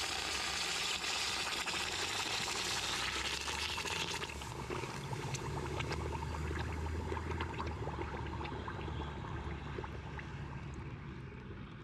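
A hot investment-casting flask quenched in a bucket of water: hissing as the water boils against the hot investment plaster. After about four seconds the hiss fades into scattered crackling and popping as the plaster breaks up in the water.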